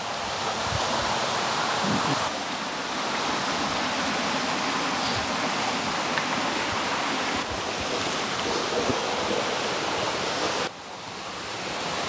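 Small forest stream flowing: a steady rush of water that briefly drops away near the end and then builds back.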